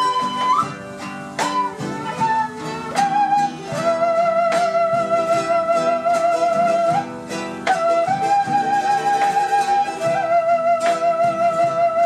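Live acoustic band: an end-blown wooden flute plays long held notes with vibrato over strummed acoustic guitars keeping a steady rhythm.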